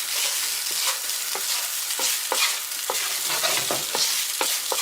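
Food sizzling in a hot pan while being stir-fried, with a spatula scraping the pan in irregular strokes about twice a second over a steady sizzle.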